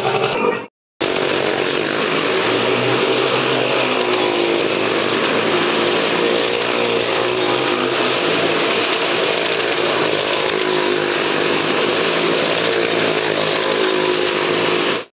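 Loud, steady running of stunt-vehicle engines inside a wooden well-of-death drum. The sound drops out briefly about a second in, at an edit cut.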